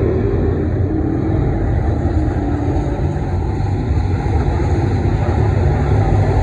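A field of IMCA Modified dirt-track race cars running their V8 engines at race speed around the oval. Heard from the grandstand, the engines make a loud, steady drone with no single car standing out.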